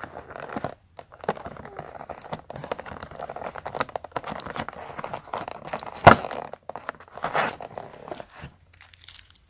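Sticky tape being picked at and peeled off a toy's cardboard-and-plastic window box, with irregular crinkling of the plastic and one sharp click about six seconds in.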